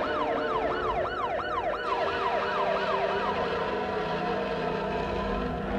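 A yelping siren, its pitch sweeping up and down about three times a second, fading out a little past halfway, over a steady hum.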